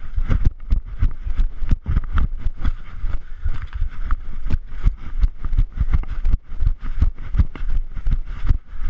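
Running footsteps thudding in a quick steady rhythm, about three a second, jolting a body-worn camera, with low rumble on the microphone.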